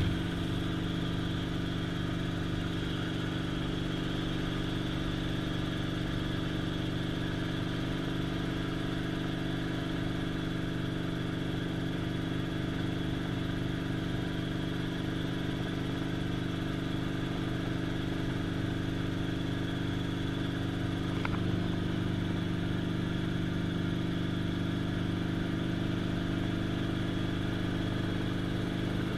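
Helicopter engine and rotor running steadily in flight, heard from inside the cockpit as an even drone, with one faint click a little past two-thirds of the way through.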